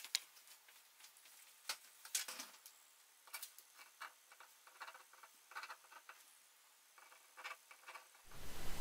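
Pen scratching on paper in short, irregular strokes as someone writes by hand. Near the end a rising rush of noise fades in.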